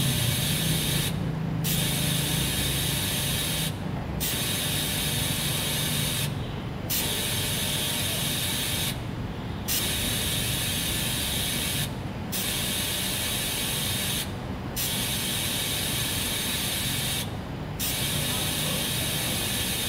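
TIG (gas tungsten arc) welding arc on a 316 stainless steel tube: a steady hiss whose high-pitched part drops out briefly about every two and a half seconds.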